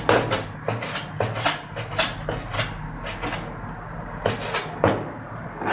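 Chinese cleaver slicing raw pork on a plastic cutting board. The blade strikes the board in a run of sharp knocks about two a second, with a short lull around three to four seconds in.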